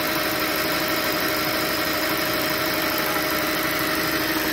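Audi S8's 5.2-litre FSI V10 idling steadily while still warming up from a cold start. A faint high-pitched note runs over the idle.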